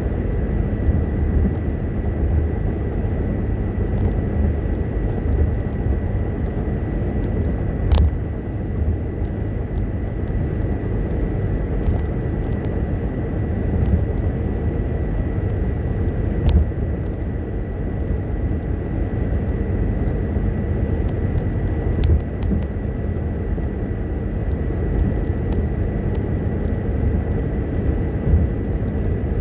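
Car cabin noise at highway speed: a steady low rumble of tyres and engine, with a faint steady high whine and a few brief sharp clicks.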